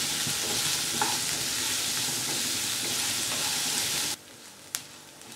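Chopped onions sizzling in hot coconut oil in a nonstick kadai as they are stirred with a wooden spatula, with a light knock about a second in. The sizzle cuts off suddenly about four seconds in, leaving a faint hiss and a single click.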